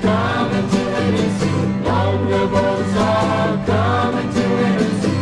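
A vocal group singing a folk song with instrumental backing, in short sung phrases of about a second each over a steady bass line.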